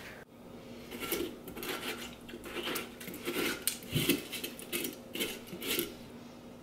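Metal melon baller scraping and scooping the flesh out of a whole watermelon, a quick run of short scrapes against the inside of the rind, about three a second, with a dull thud about four seconds in.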